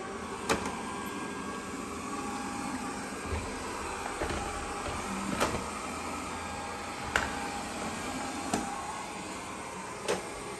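GleeU GRS1 robot vacuum running steadily in auto mode, with about six sharp knocks spaced a second or two apart.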